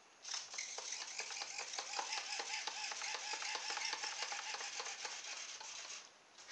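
Small brushed electric motor spinning a two-blade air propeller on a radio-controlled boat: a steady whir with a rapid crackle. It starts just after the beginning and cuts off about six seconds in.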